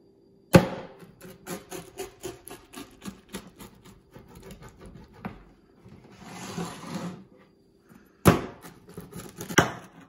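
Pizza cutter wheel pressing and rolling through a deep-dish pizza and knocking on a wooden cutting board: a sharp knock about half a second in, a run of clicks and scrapes, and two more loud knocks near the end.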